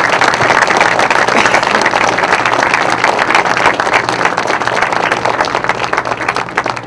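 Crowd of soldiers applauding: dense, steady clapping that thins out and fades near the end.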